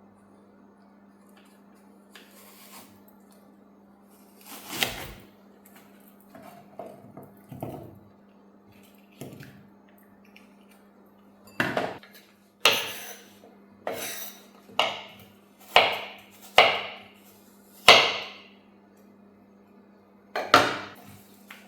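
Dishes and utensils being handled: soft knocks at first, then a run of about ten sharp clinks and knocks in the second half, each ringing briefly. A faint steady hum runs underneath.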